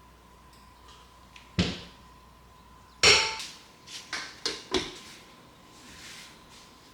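Several short, sharp knocks and clinks of hard objects being handled and set down, the loudest about three seconds in with a brief ring, followed by a quick run of three lighter knocks.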